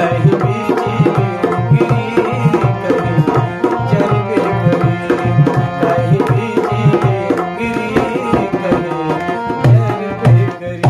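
Dholak and harmonium playing an instrumental passage: a fast, steady drum rhythm under held harmonium chords, with a few loud drum strokes near the end.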